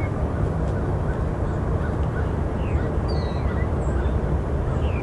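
Scattered bird calls, short chirps and gliding whistles, over a steady low rumble.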